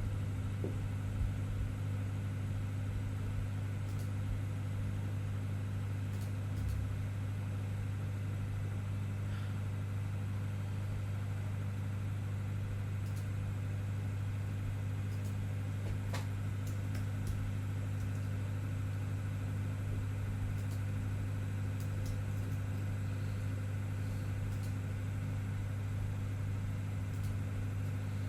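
Steady low electrical hum in the background, unchanging throughout, with a few faint clicks.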